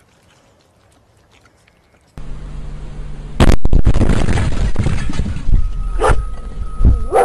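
A couple of seconds in, loud, distorted noise starts with a sudden loud blast, then a dog barks twice near the end.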